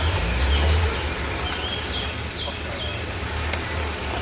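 Low engine rumble of a Mitsubishi Pajero 4x4 crawling slowly through a muddy off-road rut, louder in the first second and then easing. Birds chirp several times over it.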